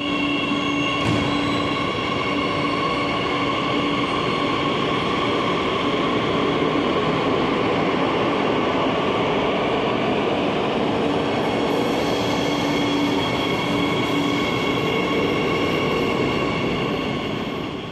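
CAF S8000 Madrid Metro train pulling out of an underground station: steady running noise with several constant whining tones from its electrics.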